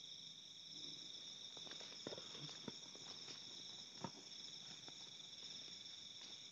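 Night insect chorus: crickets trilling steadily at several high pitches. A few faint ticks and rustles come through the middle, the sharpest about four seconds in.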